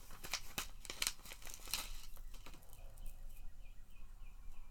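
Plastic packaging of a fishing jig crinkling and clicking as it is handled and opened, thinning out about halfway through.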